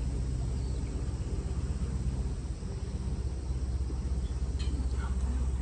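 Tour boat's engine running steadily, a low, even hum.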